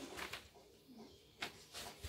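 Crayon rubbing on paper in a few short scratchy strokes.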